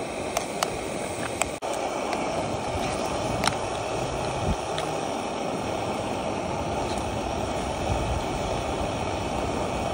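Portable gas-canister camping stove burning under a small pot with a steady hiss while food fries in it, and a metal spoon clinks and scrapes against the pot a few times in the first half.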